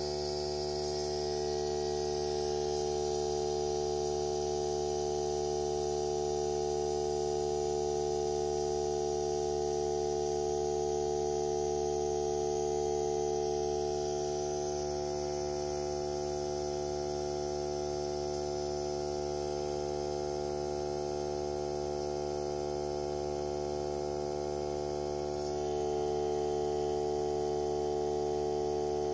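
Hart 20-volt cordless 2-gallon air compressor running steadily while inflating a tire: a steady electric hum that drops a little in level about halfway through and comes back up near the end. It fills the tire slowly.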